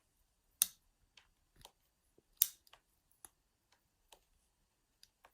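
Sparse, irregular metallic clicks and ticks of a pick and tension tool working the levers inside an ERA five-lever padlock during lever picking. Two clicks are louder, about half a second and two and a half seconds in.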